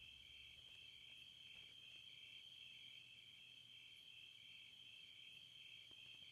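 Crickets chirring faintly and steadily, one continuous high trill.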